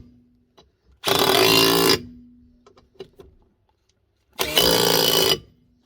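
Impact gun rattling in two bursts of about a second each, about a second in and again near the end, each followed by a short fading hum as the motor winds down.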